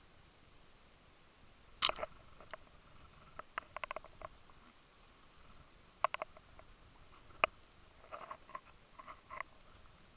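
Scattered sharp underwater clicks and knocks: a loud single click about two seconds in, a quick cluster of taps around four seconds, a pair and a single click in the middle, and another cluster of softer taps near the end.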